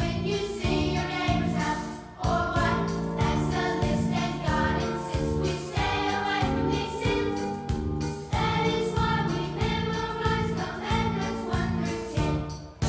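Music: a choir singing over an accompaniment with a steady beat.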